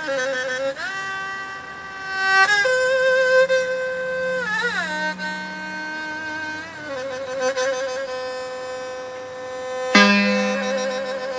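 Background music: a slow solo melody on a bowed string instrument, with long held notes, vibrato and sliding pitch changes. A new, stronger note comes in about ten seconds in.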